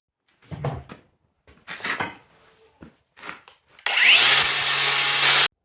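A few short knocks of handling, then a hand-held power grinder spinning up with a rising whine and grinding loudly on the broken-off exhaust manifold bolt stub in the cast-iron cylinder head for about a second and a half, stopping abruptly. The stub is being ground flush so it can be center-punched and drilled out.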